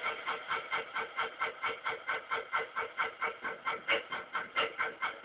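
Hexapod robot's leg servos whirring in quick, evenly spaced pulses, about five a second, as the legs move.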